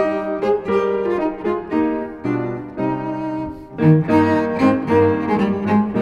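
Background music of bowed strings, a cello-like melody over a lower bass line, playing notes of about half a second each.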